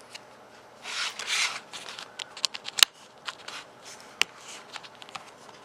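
Fingers handling a laptop keyboard's flat ribbon cable and plastic parts while seating it in its connector: a short rustle about a second in, then scattered small clicks and ticks, the sharpest near three seconds in.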